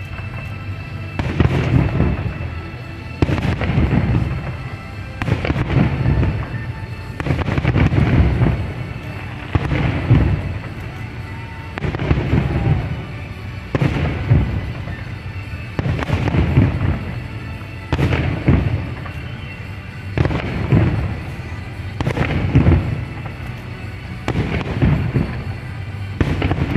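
Fireworks display: shells bursting in a steady run of heavy booms about every two seconds, with music playing along.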